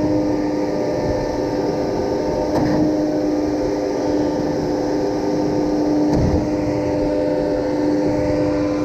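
Concrete pump running steadily under engine power while pumping concrete, with a dull knock about every three and a half seconds as the pump strokes.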